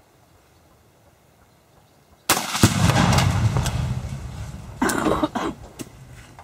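Six pounds of binary exploding target (Patriot Boomer) packed in a washing machine detonating when hit by a rifle shot: a sharp crack about two seconds in, then a deep boom that rolls and fades over about three seconds, with a few sharper cracks near the end.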